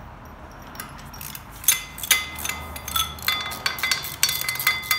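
Steel wrench and bolts clinking and rattling against the cast-iron gearbox housing of a hay tedder as the housing bolts are worked loose: irregular sharp metallic clinks with a brief ring, starting about a second and a half in and coming thick and fast to the end.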